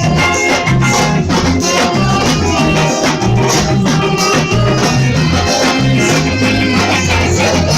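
Upbeat instrumental band music with a steady beat: a shaker-like rattle keeping time over bass and other instruments.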